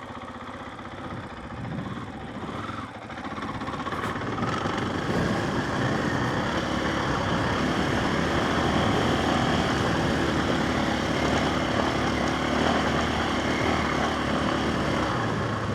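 KTM 500 EXC single-cylinder four-stroke dirt bike engine running under way as the bike is ridden, heard from a mic on the rider. It gets louder from about four seconds in, holds steady, and eases off near the end.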